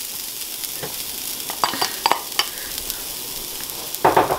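Grated coconut sizzling steadily in hot oil in a frying pan, with a few sharp clatters against the pan about two seconds in and a louder one near the end.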